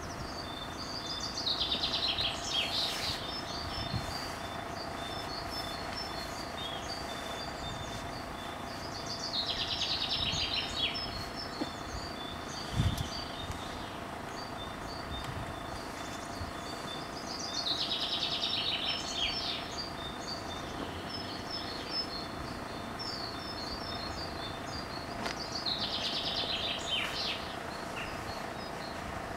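A songbird sings a short song phrase about every eight seconds, with other light chirping between the phrases, over a steady low hum. A single brief knock comes about halfway.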